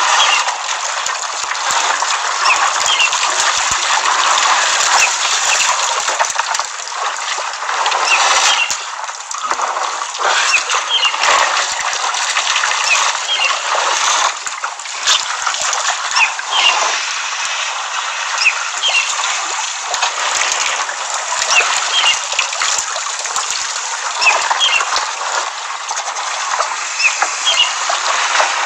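Water splashing and sloshing at a waterhole where an elephant herd is drinking and bathing, with small birds chirping many times over it.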